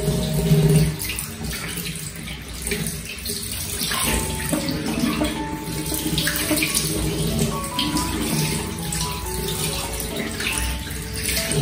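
Tap water running steadily, as used in bathing a kitten, with background music of held notes over it.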